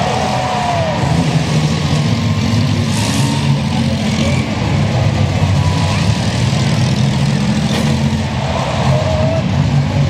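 Engines of several demolition-derby minivans running and revving together in a loud, steady din.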